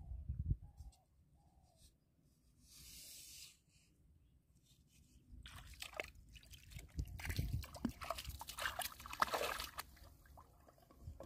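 Shallow river water sloshing and splashing as a person wades and works with his hands in it. The splashing is busiest in the second half, with a few low thumps at the very start.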